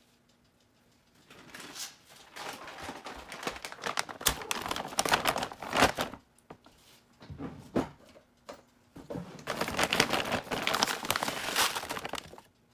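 Crinkling and rustling of a bag of dry rice as a cup of rice is measured out, in two long spells: from about a second in to six seconds, and again from about nine to twelve seconds.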